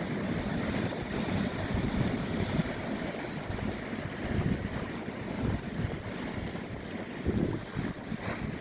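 Steady rushing sea-water noise with a gusty low rumble from water or wind buffeting the microphone.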